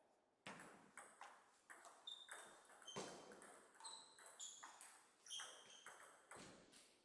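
Table tennis ball clicking off paddles and bouncing on the table and floor: a quiet string of irregular sharp clicks, several with a short high ringing ping.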